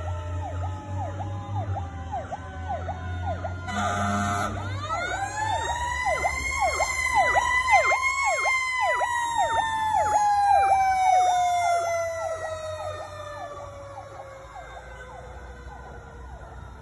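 Fire truck sirens on an emergency response: an electronic siren yelping rapidly throughout, a short air horn blast about four seconds in, then a mechanical siren winding up to a peak around eight seconds and slowly winding down. Everything fades after about twelve seconds as the trucks move off.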